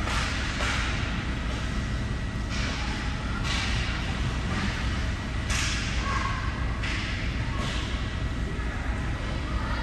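Ice rink sound: a steady low rumble with repeated short scraping hisses of skate blades on ice.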